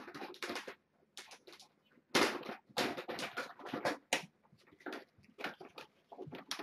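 Bag of dry cat kibble being handled for pouring: irregular rustling and rattling in short bursts, busiest from about two to four seconds in.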